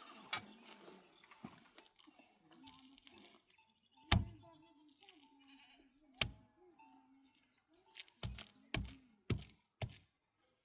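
Livestock bleating faintly, wavering calls, against a series of sharp knocks. There is one knock about four seconds in, another about six seconds in, and four in quick succession near the end.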